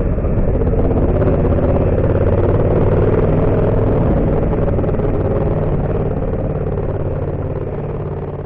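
Yamaha MT-07's 689 cc parallel-twin engine running at fairly steady revs with a rough clattery layer over it, slowly fading in level near the end.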